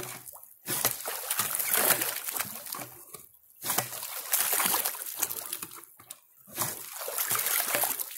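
Water from a hand dredge splashing into a bucket through its classifier screen, in about four surges with short breaks between.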